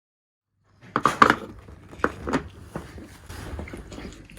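Clatter of dishes and utensils being handled, several sharp knocks and clinks starting about a second in.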